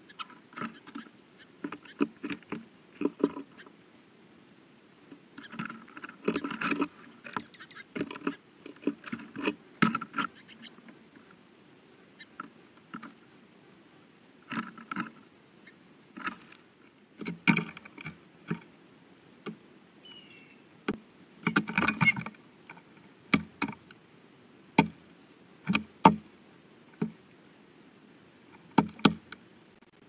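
Irregular taps and knocks, some single and some in quick clusters, from birds pecking and hopping through seed on a wooden feeder platform right beside the camera. A red-bellied woodpecker is feeding at the platform's edge, and a blue jay lands near the end.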